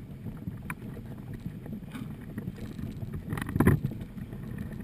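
Wind buffeting the microphone over choppy water, with waves splashing and slapping against a boat's hull. There are a few short knocks, and a louder splash about three and a half seconds in.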